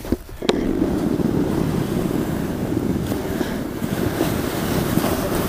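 Sled sliding down a snowy hill: a steady rushing scrape over the snow, mixed with wind buffeting the microphone, starting with a knock about half a second in.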